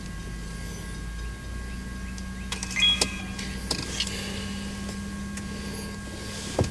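Steady low hum of a stationary car heard from inside the cabin, with a few light clicks around the middle and a sharper click near the end as the hum stops.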